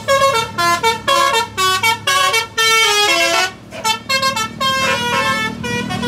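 Basuri 'telolet' multi-tone bus horn on a DAV module playing a fast melody of short, stepped notes, with a short break about three and a half seconds in.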